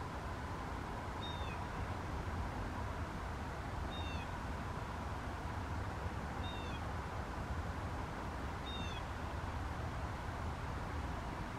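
A bird's short, high call that slides downward in pitch, repeated four times about every two and a half seconds. A steady low rumble and hiss runs underneath.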